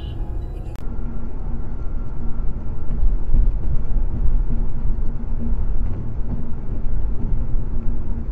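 Steady low rumble of road and engine noise inside a car cruising on a highway. The sound changes abruptly less than a second in, then runs on evenly with a faint steady hum.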